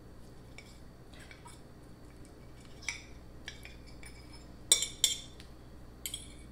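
A metal fork clinking and scraping on a plate as spaghetti is twirled onto it: scattered light clicks, the loudest two close together a little under five seconds in.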